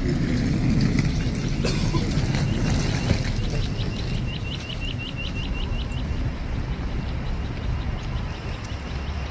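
Audible pedestrian-crossing signal chirping rapidly, about five short high chirps a second, over a steady rumble of city traffic. The chirping fades after about six seconds.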